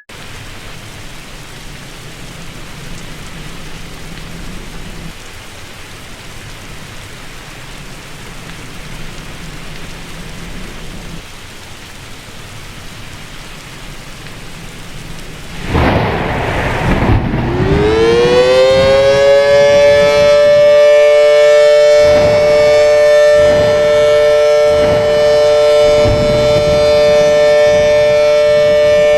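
A steady hiss, then about halfway through an air-raid siren starts up. It rises in pitch over a few seconds and settles into a loud, steady two-note chord, with a few low thumps under it.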